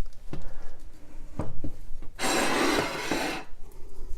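A few light knocks of kitchenware, then a hard object sliding and scraping across the countertop for about a second.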